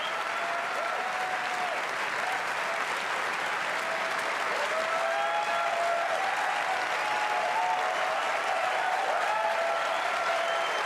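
A large auditorium audience applauding steadily, with scattered cheers over the clapping; the applause swells a little about halfway through.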